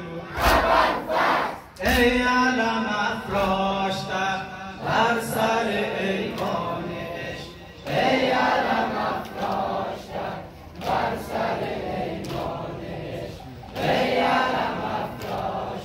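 A crowd of men chanting a Muharram noha (mourning lament) together, with sharp slaps of hands striking chests in unison every so often.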